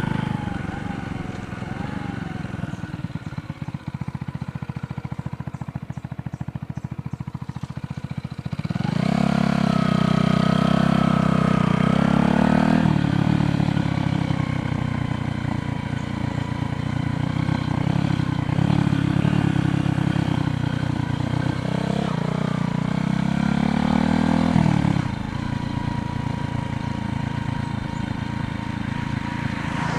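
Motor vehicle engine running close by on the road, much louder for about fifteen seconds from roughly nine seconds in, its pitch rising and falling as it changes speed.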